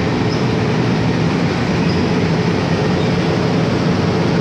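Metro train standing at the platform with its doors open, its equipment running with a steady hum over a constant rushing noise.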